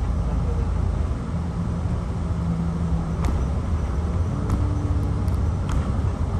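Shuttle bus running, heard from inside the cabin: a steady low rumble of engine and road noise with a faint engine hum and a few light clicks.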